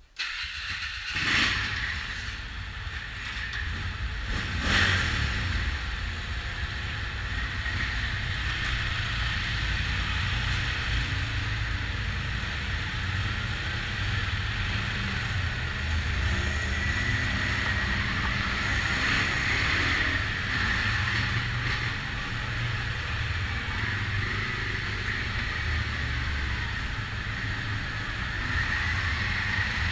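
ATV engines running steadily as quads ride slowly over rough dirt and rock, with a knock twice in the first five seconds.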